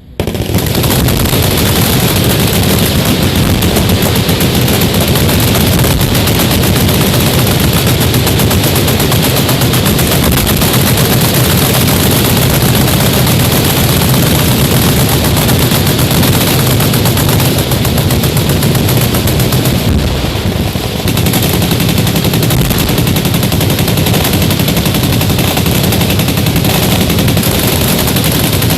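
Machine guns firing full-auto together from the firing line, one continuous dense roar of gunfire that starts abruptly. It barely slackens once, about twenty seconds in.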